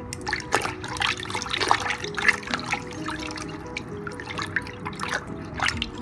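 Water splashing and sloshing in a basin as a hand rubs and scrubs tomatoes under the water. The splashes come in uneven bursts, busiest in the first couple of seconds and again near the end.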